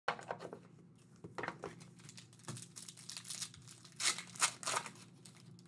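Foil wrapper of a Panini Court Kings basketball card pack being torn open and crinkled by hand, with the loudest sharp tears about four seconds in.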